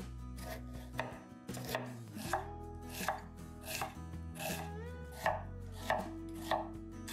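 Kitchen knife chopping on a cutting board in slow, even strokes, about one and a half to two a second.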